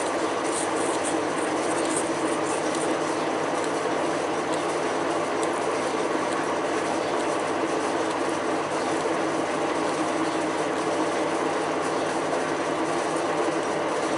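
A machine tool running steadily while drilling metal, the motor and gearing giving a constant mechanical drone with a fine rattle.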